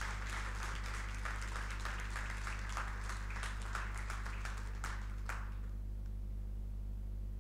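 Audience applauding: many hands clapping in a dense patter that stops abruptly about five seconds in.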